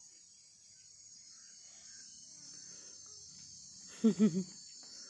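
Steady high-pitched chirring of crickets, with a brief two-syllable voice sound about four seconds in.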